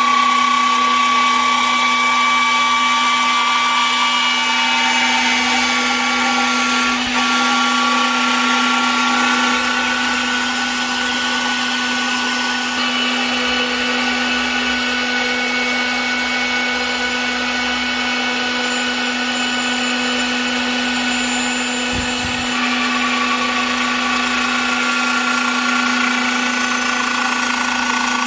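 5-axis CNC router spindle running steadily as it cuts a carbon fibre helmet, a constant whine with machining noise. The higher tones in the whine shift a couple of times along the way.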